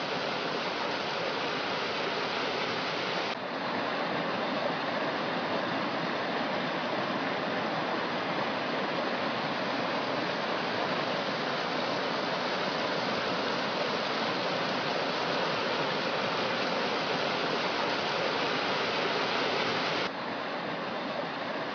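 Steady hiss of rushing water, a rain and running-water sound effect, with small level shifts about three seconds in and near the end.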